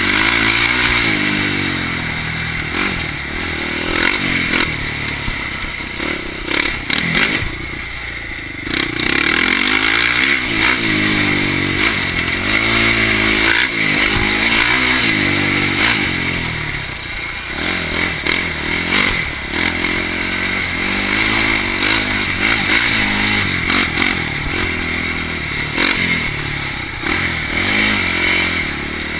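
Polaris Predator 500 quad's single-cylinder four-stroke engine revving under way, its pitch climbing and dropping back again and again with the throttle, briefly easing off about eight seconds in.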